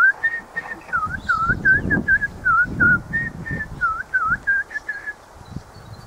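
A small songbird singing a run of short, clear whistled notes, some dipping in pitch and some level, about four a second, stopping about five seconds in.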